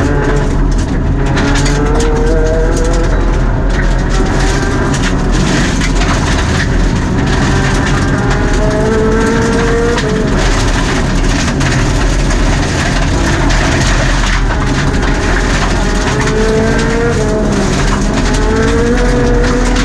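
Mitsubishi Mirage Cyborg RS rally car's MIVEC four-cylinder engine at full throttle, heard from inside the cabin, its pitch climbing through the gears again and again. Gravel and stones strike the underbody.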